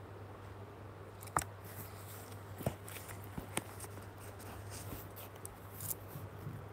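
Quiet room tone with a steady low hum and a few faint, scattered clicks, the first about a second and a half in.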